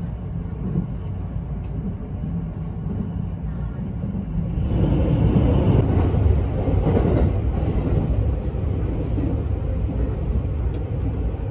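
Running noise of a Shirasagi limited express electric train heard inside the passenger car, a steady rumble of wheels on rail. About five seconds in it turns suddenly louder as the train enters a tunnel.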